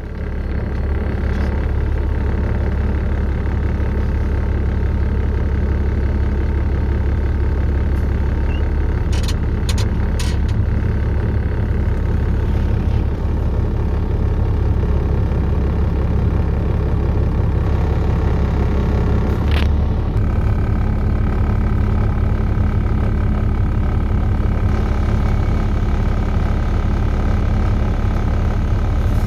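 Cab interior of a loaded 2011 Peterbilt semi truck: the diesel engine runs with a steady low drone, and the drone changes about two-thirds through. A few sharp knocks come near the middle and once more just before the change.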